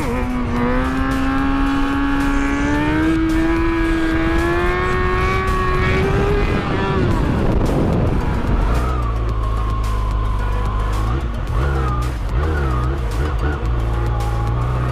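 Sport-bike engine under way, its pitch climbing steadily for about six seconds as it accelerates, then dropping and settling into steady running.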